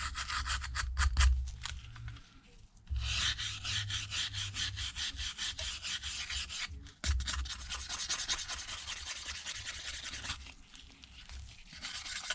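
Small brush scrubbing quickly back and forth along the edges of a phone's frame, sweeping away leftover glass dust and bits. The strokes come in stretches, with a short pause about two seconds in and a brief break around seven seconds, and grow quieter near the end.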